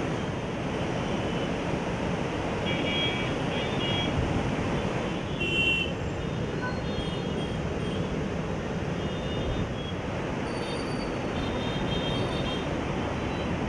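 Steady rushing noise of Krishna River flood water pouring through the open gates of Prakasam Barrage, with a few faint short high tones now and then.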